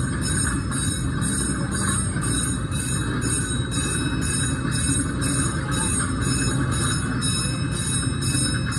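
Open-sided passenger cars of an amusement-park train rolling past with a steady rumble. A railroad crossing signal rings over it about twice a second while the gate is down.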